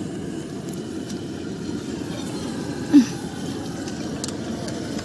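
Steady low roar of the gas burner under a large cooking wok, running evenly throughout. A short falling voice-like sound cuts in about three seconds in.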